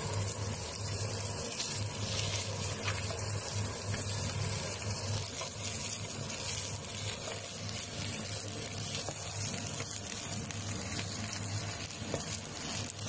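Fried rice sizzling in a hot pan while being stirred and turned with a wooden spatula, a steady frying hiss with a few light scrapes, over a steady low hum.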